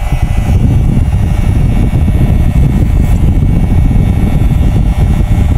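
Electric hair clipper, fitted with a 1.5 mm guard, running steadily with a loud motor buzz as it cuts hair at the back and side of the head.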